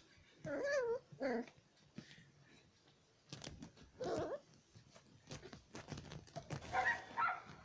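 A dog whining and whimpering in a few short, wavering high calls, with small clicks and rustles between them.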